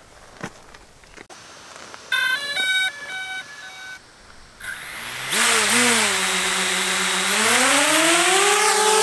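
DJI Spark quadcopter powering up: a short run of stepped electronic beeps, then its four propeller motors spin up with a whine about five seconds in. The pitch settles lower, then climbs steadily near the end as the drone throttles up to take off.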